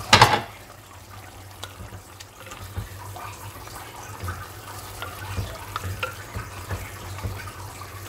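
A pot of chicken, burger patties and meatballs cooking in water on the stove, with scattered faint pops over a steady low hum. A brief loud noise right at the start.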